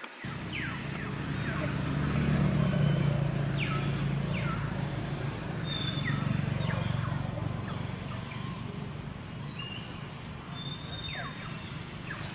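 A motor vehicle's engine running steadily, swelling about two seconds in and easing off again toward the end, with short high falling chirps scattered throughout.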